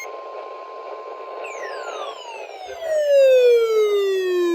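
A faint steady high tone over radio hiss, then, from about a second and a half in, a tone that slides steadily down in pitch and grows louder before cutting off abruptly.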